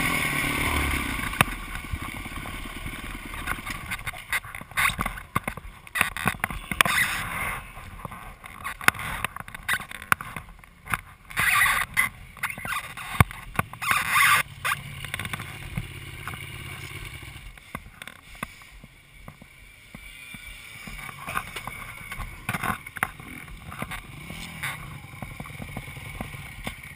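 Honda CRF450X single-cylinder four-stroke dirt bike engine running under way, easing off within the first two seconds as the bike slows and stops, then idling low and uneven. Scattered knocks and rubbing sounds close to the microphone.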